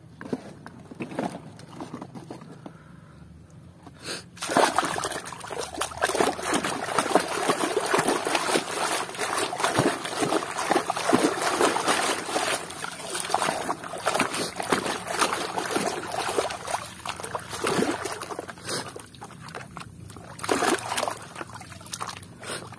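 Muddy water splashing and sloshing as a plastic toy dump truck is swished back and forth in it by hand, washing the mud off. A few light splashes at first, then steady, busy splashing from about four seconds in.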